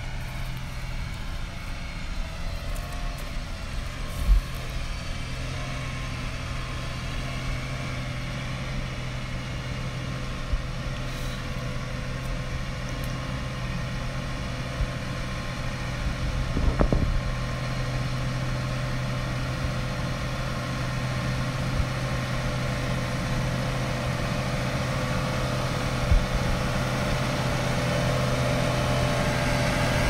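John Deere 8295R tractor's six-cylinder diesel running steadily under load, pulling a peanut inverter through dry, hard ground. It grows louder as the tractor draws near toward the end, with a few brief knocks along the way.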